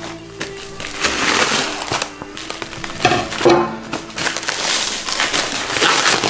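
Black plastic mailer bag crinkling and tearing as it is pulled open by hand around a cardboard box, over background music.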